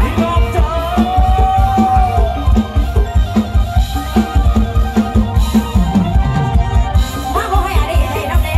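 Live band music played loud through a stage PA: a steady kick-drum beat under bass and keyboard, with one long held melody note about a second in. A woman's singing voice comes back in near the end.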